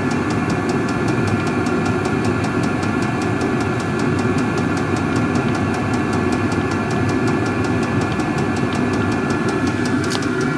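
Vevor 8 kW diesel air heater running steadily: its combustion fan blowing with a dense drone, and a fast, even ticking over it, the clatter of the heater's fuel dosing pump.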